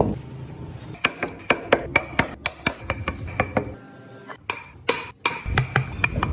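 Wood-carving hand tools striking wood in a rapid series of sharp knocks, about four a second, some with a short metallic ring, as a mallet drives a carving chisel. The knocking breaks off abruptly a couple of times.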